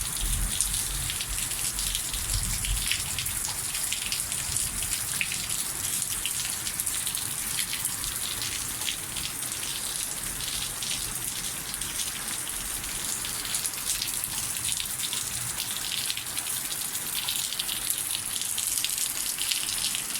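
Steady rain falling, with many separate drop impacts heard over a continuous hiss of rain; a low rumble sits under it for the first few seconds.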